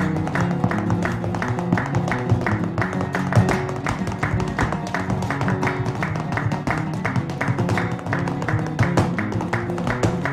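Flamenco guitar music with fast, evenly repeating strummed strokes.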